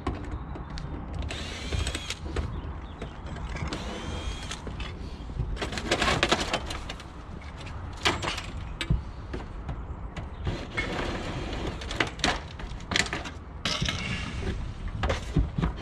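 Cordless drill-driver whining up and down in short runs while working the fixings of a roof skylight frame, with knocks and clatter in between, over a steady low rumble.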